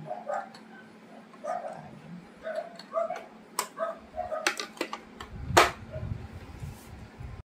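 Short, repeated high whines from an animal, with sharp clicks and knocks of plastic sewing-machine parts being handled. The loudest knock comes about five and a half seconds in.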